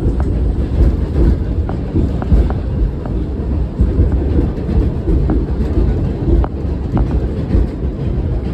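New York City Q subway train running, heard from on board: a loud, steady low rumble with short clicks scattered irregularly through it.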